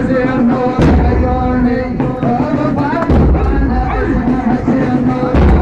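A male radood chanting a rousing Shia elegy poem in a melodic, wavering voice over a deep bass bed. Heavy thuds land about every two and a quarter seconds.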